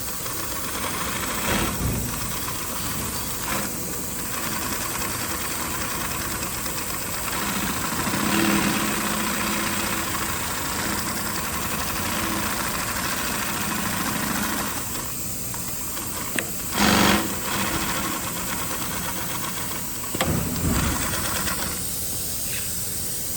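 Direct-drive two-needle cylinder-bed walking-foot industrial sewing machine running in spells. It hums steadily through the middle, with short louder runs later on.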